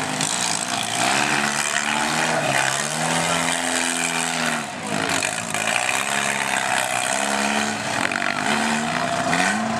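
Demolition derby car engines revving up and falling back again and again as the wrecked cars push against one another in a pile-up, over a steady rushing noise.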